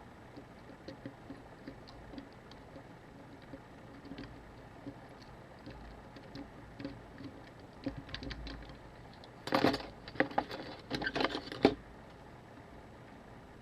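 Small metal hand tools and camera parts clicking and scraping during disassembly of a Canon AE-1 film camera body, with a louder burst of clattering knocks about two-thirds of the way in, as of a tool or part set down on the bench.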